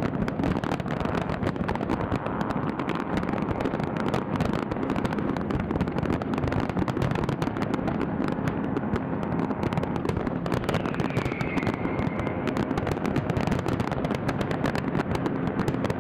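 Large fireworks display: a dense, continuous barrage of bursts, booms and crackling with no gaps, and a short falling whistle about eleven seconds in.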